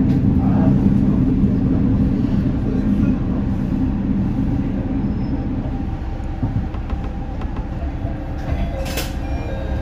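Isumi Railway Kiha 350 diesel railcar running on the line, its engine drone fading about six seconds in as the car slows to a stop, leaving a low rumble. A single sharp click comes near the end.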